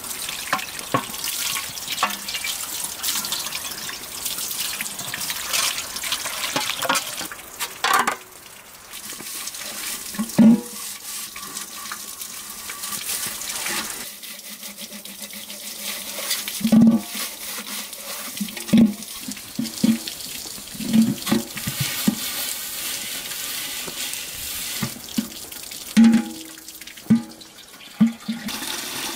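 Water running from an outdoor tap while a large aluminium pot and its lid are scrubbed and rinsed under it. Several sharp knocks of the metal pot against the tap and stone basin come in the second half.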